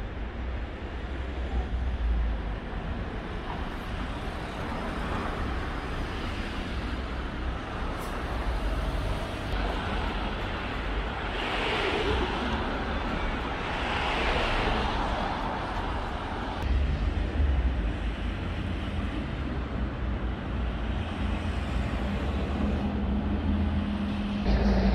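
Street traffic: cars going by on a road, with a louder swell of passing vehicle noise about halfway through and a steady low hum rising near the end.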